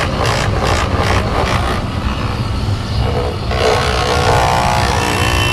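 Handheld electric dolphin massager buzzing steadily as it is run along a person's arm, with street traffic around it.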